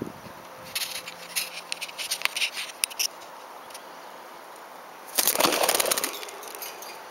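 Pet parakeets: quick, sharp high clicks and chirps for about two seconds, then, about five seconds in, a second-long flurry of wings flapping.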